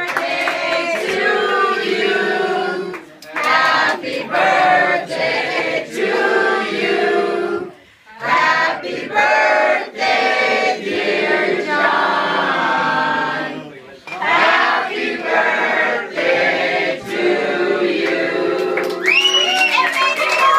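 A group of family and friends singing a birthday song together, men's and women's voices without instruments, in phrases with short breaks between them. A high rising-and-falling cry cuts in near the end.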